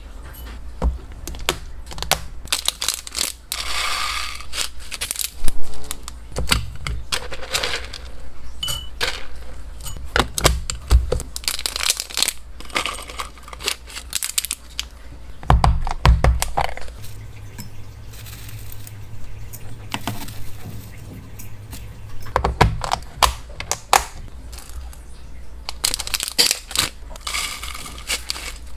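Dry hamster food being handled: small pellets rattling and clicking as they are scooped and poured into a glass cup, then plastic snack bags crinkling as they are opened and dried herbs tipped out. The sound comes as a run of sharp clicks and short rustling bursts.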